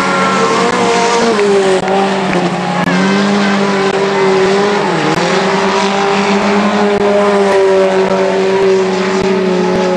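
Several mini stock race cars' engines running hard together, their notes holding fairly steady with a brief dip in pitch about halfway through.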